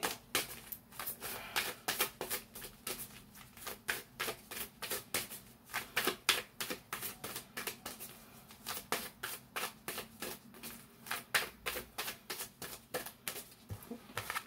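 A deck of oracle cards being shuffled by hand: a steady run of sharp card clicks, about three or four a second.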